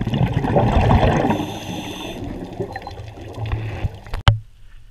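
Muffled rushing and bubbling of water heard underwater, loudest in the first two seconds and then fading. A single sharp click comes near the end, after which the sound drops away.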